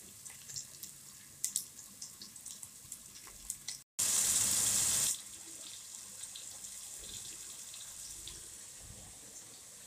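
Chopped onions sizzling in oil in a nonstick pot, with light clicks and scrapes of a wooden spatula stirring them. About 4 s in, a loud burst of sizzling lasting about a second as chopped tomatoes fry in the hot oil, then a steady, quieter sizzle.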